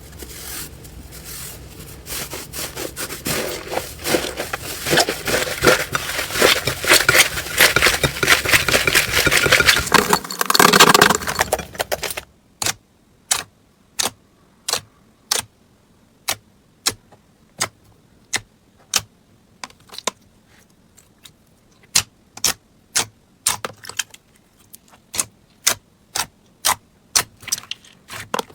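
Slime being squeezed and worked, with dense crackling and popping for about twelve seconds. Then come separate sharp clicks, roughly one a second, bunching closer together near the end.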